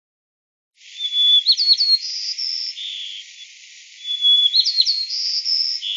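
Sparrow singing: a short song phrase of a steady whistled note, a few quick upward-sweeping notes, then higher held notes and a lower one, sung twice, first about a second in and again about four seconds in.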